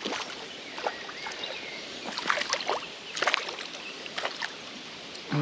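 Water splashing in small scattered bursts, with light knocks, as a hooked perch is worked out of the water and landed.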